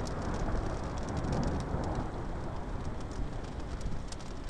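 Steady rain with many distinct drop hits, under a gust of wind that swells over the first couple of seconds and then eases off.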